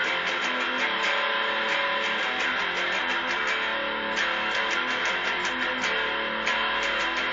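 Guitar played in quick, even strokes, several a second, with chords ringing on under them.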